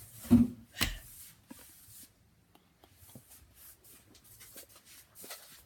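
Handling noise: a thump and a sharp click near the start, then faint rustling and scattered small taps as objects are moved about by hand.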